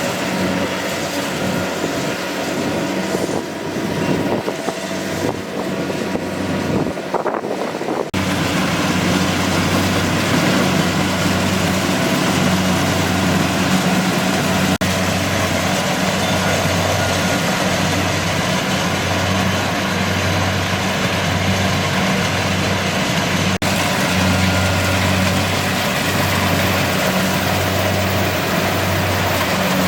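Kubota DC-70G PRO combine harvester running steadily, a continuous mechanical drone with a strong low hum. About eight seconds in it becomes louder and more even.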